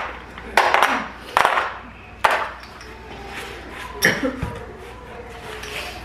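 Casino-style poker chips clacking as the blackjack dealer takes them from the chip tray: four sharp clacks over about four seconds, the first two with a short rattle.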